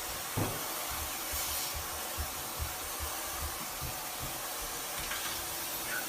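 Steady hiss of spray during air conditioner cleaning, with faint low knocks scattered through it.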